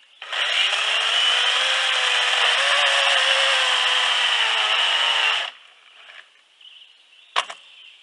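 Cordless battery-powered chainsaw running and cutting across a log. It runs for about five seconds with a slight dip in pitch under load, then stops. A single knock follows about two seconds later.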